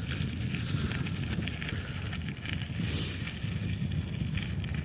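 Bicycle riding along a road: a steady low rumble of wind buffeting the phone's microphone and tyre noise, with scattered light clicks and rattles from the bike.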